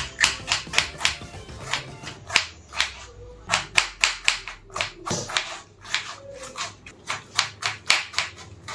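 A kitchen knife chopping tomatoes on a wooden cutting board: a quick series of sharp knocks as the blade hits the board, a few each second.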